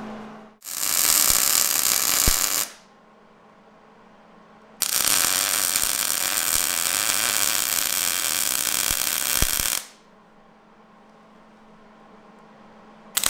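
MIG welder arc sizzling as beads are laid on a steel axle truss: a run of about two seconds, a pause, then a run of about five seconds, and another starts right at the end.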